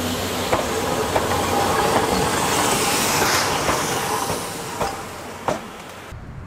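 C11 tank steam locomotive rolling slowly past, hissing steam with its wheels clicking over the rail joints. The sound fades as it moves off, with two sharper knocks near the end, then cuts off suddenly.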